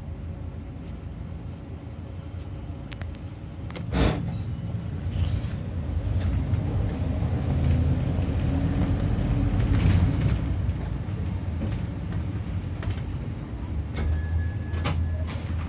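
Minibus engine heard from inside the cabin, running low and steady, then pulling harder with a slowly rising tone as the bus moves off and gathers speed. A single sharp thump comes about four seconds in.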